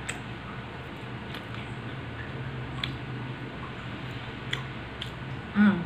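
Close-up mouth sounds of someone chewing soft bread: scattered small wet clicks and smacks over a steady low hum. Near the end a short hummed "mm" from the eater is the loudest sound.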